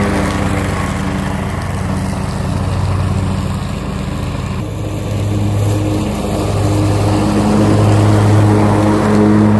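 Engine of a Scag Cheetah zero-turn mower running steadily while mowing, its note swelling and easing a little as the load changes.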